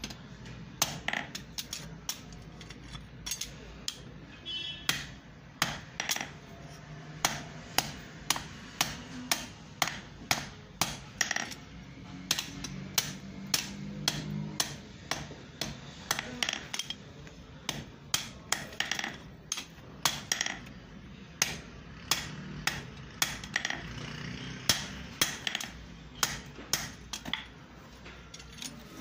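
Hand hammer forging a red-hot iron bar on an anvil block, sharp metal-on-metal blows at about two a second with a few short pauses.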